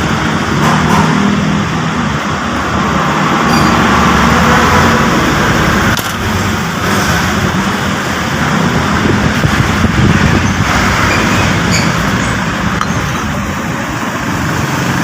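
Steady rumble of road traffic, swelling slightly as vehicles pass.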